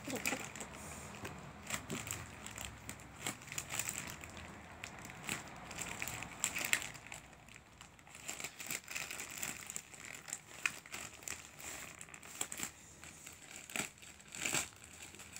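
Plastic courier mailer crinkling in the hands in irregular crackles as its sealed flap is picked at and pulled.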